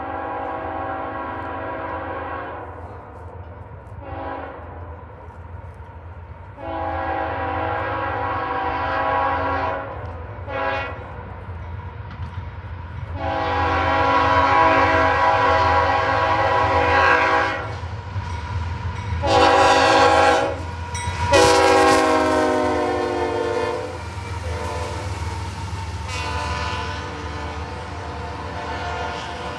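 Diesel locomotive air horn on CSX CW44AC #428 blowing a series of long and short blasts as the train approaches, the chord dropping in pitch as the locomotive passes. Under it the train rumbles steadily, and near the end double-stacked container cars roll by.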